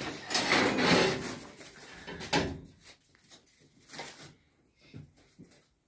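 Metal pieces scraping across a steel workbench for about a second and a half, then a single knock and a few faint taps.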